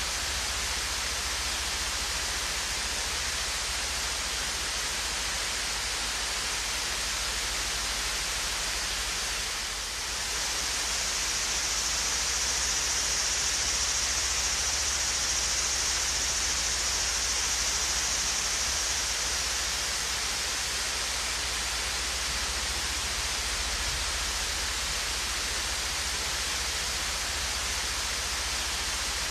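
Swayze Falls, a small waterfall, splashing steadily: an even hiss of falling water, strongest in the upper range. It grows a little brighter and louder for several seconds from about a third of the way in, then settles back.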